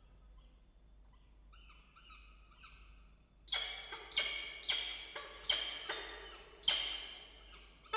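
Peregrine falcons calling at the nest: a few soft calls, then from about halfway through a run of about six loud, harsh calls roughly half a second apart.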